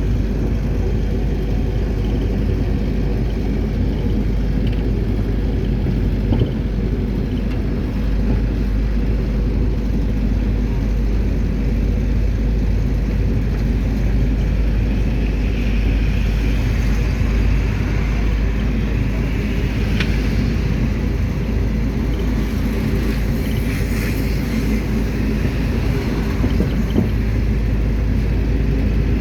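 Mercedes-Benz T1 minibus heard from inside the cabin while driving: a steady engine drone and road rumble that run on without a break, with a brief click about two-thirds of the way through.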